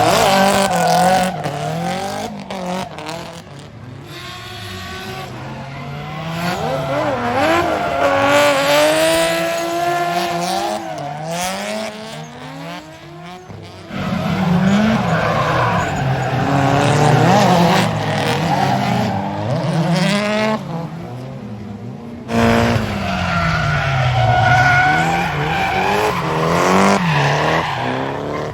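Drift cars on track: engines revving up and down repeatedly with tires screeching. The sound changes abruptly about 14 and 22 seconds in, as one clip gives way to the next.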